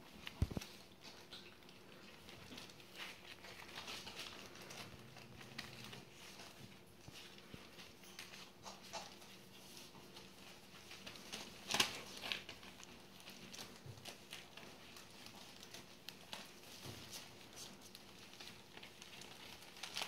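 Border collie puppies padding about on newspaper spread over the floor of their pen, the paper rustling and crinkling under their paws, with a sharp knock about half a second in and another near the middle.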